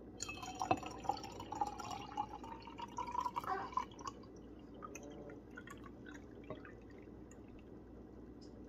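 Juice pouring into a glass jar: a splashing stream whose pitch rises steadily as the jar fills, stopping about four seconds in. A faint clink follows later.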